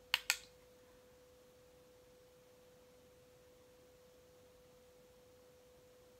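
Two quick, sharp clicks a fraction of a second apart as a makeup compact and brush are handled, followed by a faint, steady hum.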